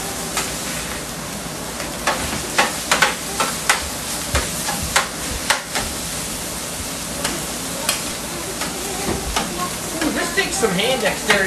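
Fried rice and chicken sizzling on a hot steel flat-top griddle, with metal spatulas clacking and scraping against the griddle in quick, irregular strikes.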